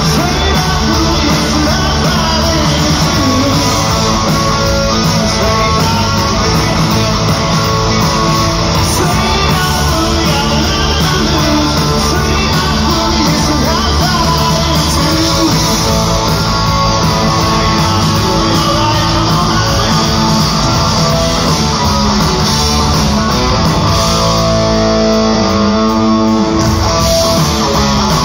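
Rock band playing live with electric guitars and drums, loud and steady throughout.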